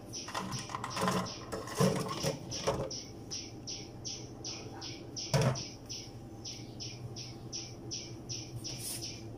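Raw quail eggs clattering as they are tipped from a plastic bowl into a plastic colander, a run of knocks over the first three seconds. About five and a half seconds in comes one louder knock as the empty plastic bowl is set down in the steel sink. Behind it, a high-pitched pulsing chirp repeats about two or three times a second.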